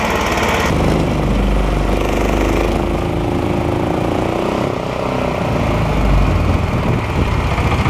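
Mud motor's small petrol engine running steadily under load, driving the dinghy up a shallow river, with the splash of the drive's wash in the water.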